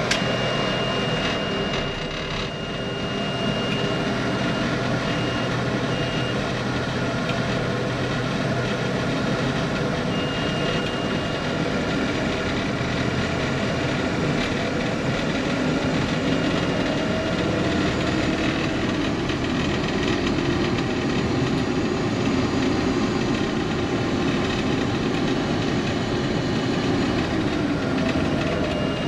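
International 1480 combine running steadily with its separator engaged on a newly fitted separator drive belt, the repair working. A thin high tone comes and goes over the steady machine noise.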